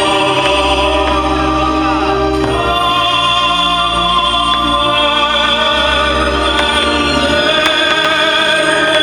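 Choral music with sustained chords over a deep bass, loud and steady, moving to new chords about two and a half seconds in and again around five seconds.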